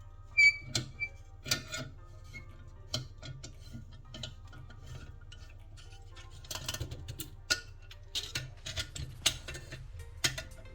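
Sharp metal clicks and clinks of valve-train parts being handled as the valves are removed from an alloy LS cylinder head. The loudest is a click with a short ring about half a second in, and the clicks come thicker in the second half, over faint background music.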